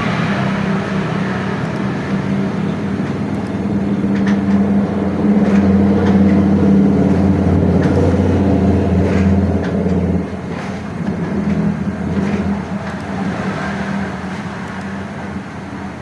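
A motor vehicle's engine running steadily, swelling through the middle and dropping off about ten seconds in.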